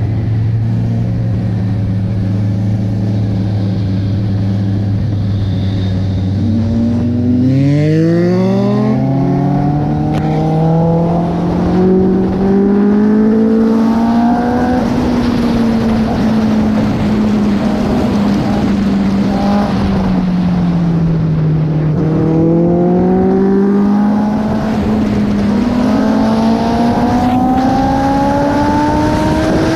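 Sport motorcycle engine heard from the rider's position: running steadily at low revs at first, then revving up hard about a quarter of the way in and holding high revs, easing off briefly past the middle, and climbing again toward the end as the bike accelerates. Wind noise rushes over the microphone throughout.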